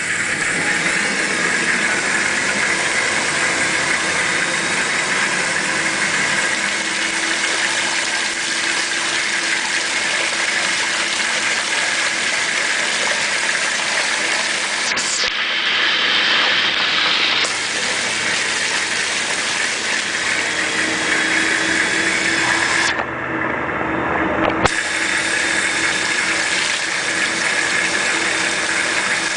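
A Hoover laundry machine running: a steady electric motor hum with a hiss and a high whine. The hiss drops away twice for a second or two.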